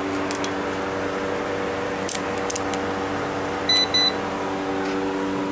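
Two short, high electronic beeps from a handheld electrical test meter about three and a half seconds in, over a steady electrical hum, with a few light clicks of the meter being handled.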